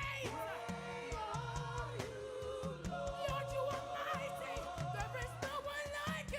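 Live gospel worship music: wavering sung vocals over a repeating bass line and steady drum beats.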